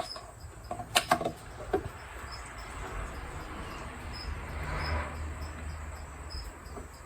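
A few sharp clicks and knocks about a second in, as the oil fill cap and oil bottle are handled, then a soft rushing swell that builds and fades: motor oil being poured into an old air compressor's crankcase. Crickets chirp steadily about three times a second throughout.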